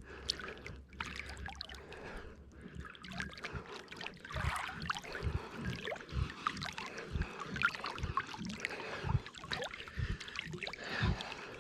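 Water sloshing and trickling, with small clicks and a low thump about once a second.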